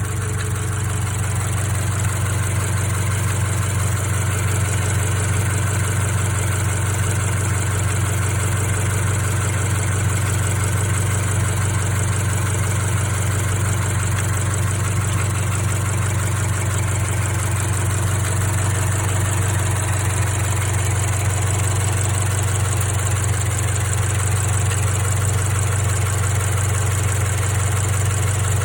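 Toyota 86 / Subaru BRZ flat-four boxer engine idling steadily in the engine bay, with an irregular "gya-gya" metal-on-metal rubbing noise. It is an abnormal noise whose cause is not yet known.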